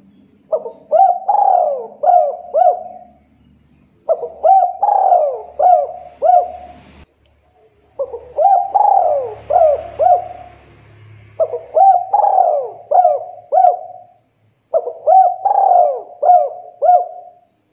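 Spotted dove cooing in full song: five phrases of several short notes each, repeated every three to four seconds.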